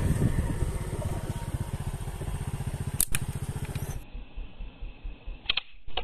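A small engine running with a fast, even pulse, with a sharp double click about three seconds in. After a sudden drop in sound, soft low thumps and a brief high-pitched call are heard near the end.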